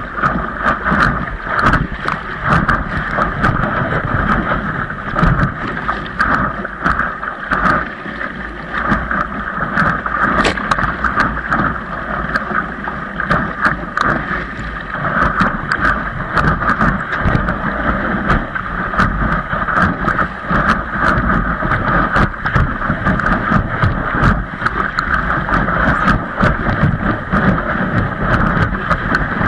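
A windsurf board under way: steady rushing, rumbling noise with constant crackle, and wind buffeting the microphone.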